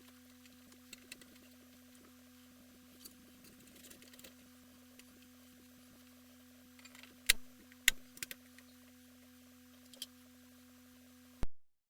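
Steady low electrical hum with scattered light clicks, two sharp clicks about a second apart near the end, then the sound cuts off abruptly.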